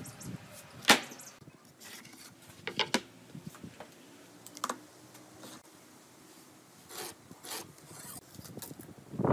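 A few scattered wooden knocks and clicks as pine boards and hand tools (a steel square, a tape measure) are set down and handled on a wooden workbench. The sharpest knock comes about a second in.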